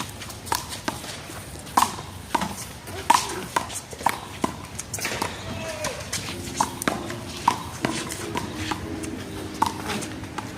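A one-wall handball rally: a small rubber ball repeatedly smacked by hand and striking the wall, in sharp, irregular slaps about a second apart.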